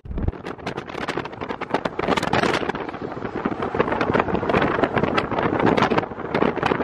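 Wind buffeting the microphone in the open bed of a pickup truck moving at highway speed: a rough, gusty rush that flutters constantly.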